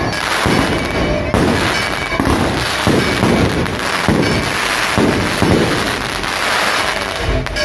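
Aerial fireworks going off in a rapid string, a deep bang roughly every second over a constant noisy background.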